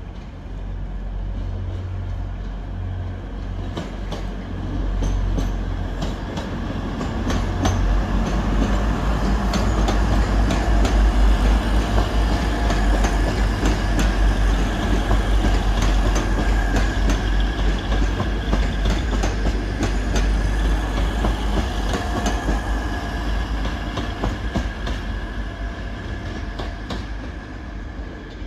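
A train moving through the station, its wheels clicking over rail joints and points over a steady high whine and a deep rumble. The sound builds over the first ten seconds, is loudest around the middle, and eases toward the end.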